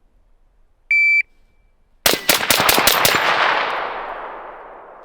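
A shot timer's start beep, then about two seconds in a fast string of roughly eight rifle shots in about a second, each echo running into the next, with a long rolling tail fading off.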